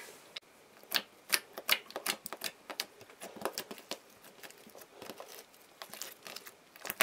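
Clear glitter putty slime being squeezed and pressed by hand, giving an irregular run of small sticky clicks and pops.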